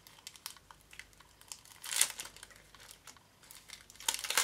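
Clear resealable plastic bag crinkling as it is handled and opened by hand, with small rustles throughout and louder crackling bursts about two seconds in and again near the end.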